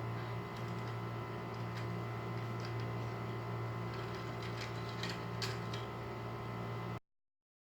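A steady low hum with a few faint clicks, cutting off abruptly about seven seconds in.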